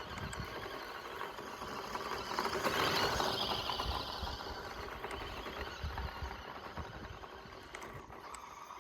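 1:14-scale Audi RS Q e-tron RC car driving over dirt: its small electric motor whirring and its tyres crackling on loose soil. It is loudest about three seconds in, as it passes close, then fades.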